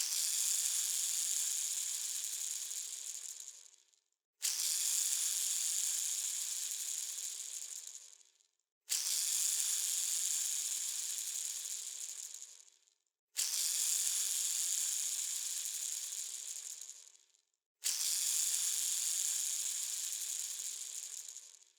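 A bearing spun by hand five times in a row. Each spin starts suddenly with a high whirring rattle that fades as the bearing coasts down over about four seconds, then comes a short pause before the next spin.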